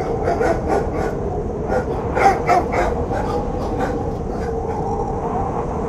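FPV drone's motors whining steadily. Over it, a run of short, sharp sounds comes in quick succession, the loudest about two and a quarter seconds in.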